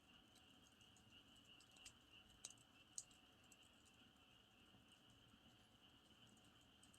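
Faint campfire crackling, a few sharp pops from the burning wood, the strongest about three seconds in, over the steady high chirring of crickets.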